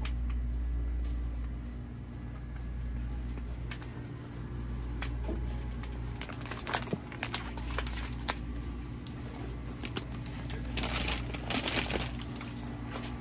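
Grocery store ambience: a steady low hum, with scattered clicks and crinkling of packaging that thicken near the end.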